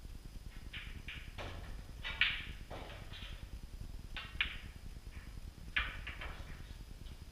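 Pool balls clicking: a series of sharp clicks at irregular intervals from cue tip on cue ball and ball-on-ball hits, the loudest about two seconds in.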